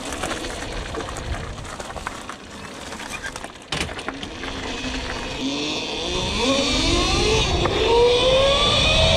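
Cake electric motorbike's motor whine rising steadily in pitch as it accelerates, over tyres crunching on gravel early on and wind rumble on the helmet camera that grows with speed.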